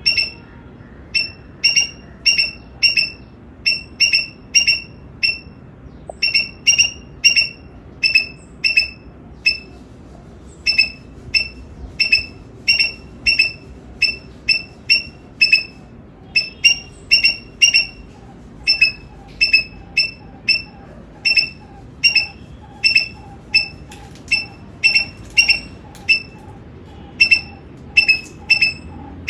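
Squirrel barking alarm calls: short, high-pitched chirps repeated about two to three times a second in long runs with brief pauses. From about halfway a fainter, lower-pitched series of calls runs underneath.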